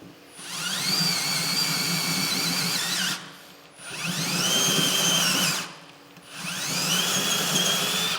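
Power drill with a step bit opening up a bolt hole through the truck bed, run in three bursts; each time the whine rises as the drill spins up, then holds steady until it is let off.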